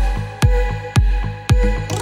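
Background electronic dance music with a steady, punchy kick drum at about two beats a second over sustained synth chords, with a short hissy sweep near the end.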